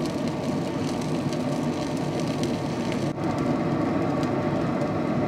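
Steady whir of a running Traeger pellet grill, with faint scattered crackles.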